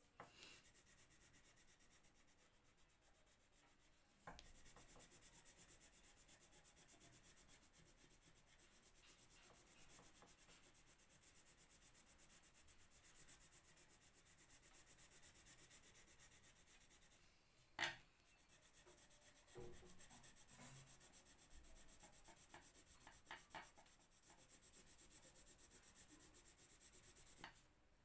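Faint rapid scratching of a colored pencil rubbed back and forth on paper while shading in a drawing. One sharp click stands out about two-thirds of the way through, and the strokes stop just before the end.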